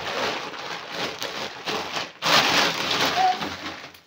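Plastic packaging rustling and crinkling as it is handled and pulled open, loudest a little past halfway through.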